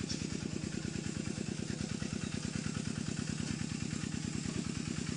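A small engine running steadily at idle, a fast, even chugging.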